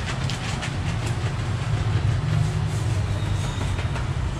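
A steady low hum, with light clicks and taps over it in the first second or so.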